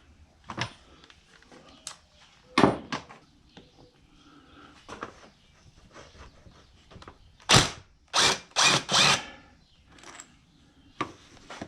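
Tools working the last screw out of a motorcycle engine's crankcase: a few sharp knocks, then about two-thirds of the way in four short, loud noisy bursts in quick succession, and light clicks near the end.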